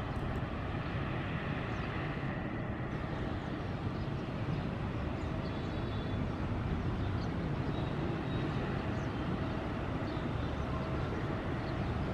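The two General Electric GE90-115B turbofans of a Boeing 777-300ER, heard at a distance, running at low taxi power as the airliner taxis toward the runway: a steady, even jet noise.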